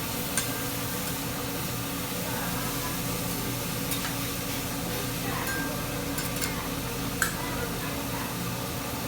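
Restaurant room ambience: a steady hiss and low hum with faint background voices, and a few light clicks of tableware.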